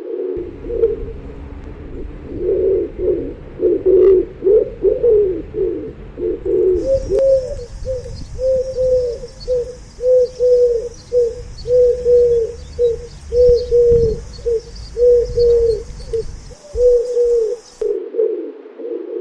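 Pigeons cooing. For the first few seconds several coos overlap in a dense warble; then a single run of short, evenly spaced coos follows, about two a second, through most of the rest.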